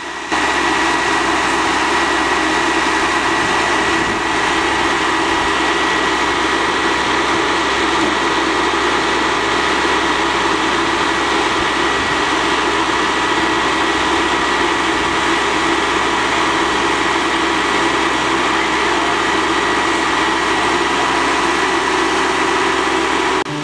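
Heavy vehicle diesel engine running loudly at steady revs, with a steady high whine over it. It starts and stops abruptly.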